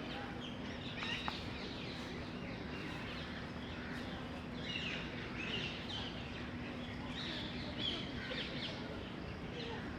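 Bees buzzing at a nest in a hollow tree: a steady, even hum, with birds chirping on and off over it.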